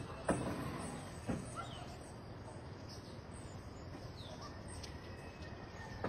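Faint outdoor ambience with a steady hiss and a few short, high bird chirps, broken by two sharp knocks about a second apart near the start.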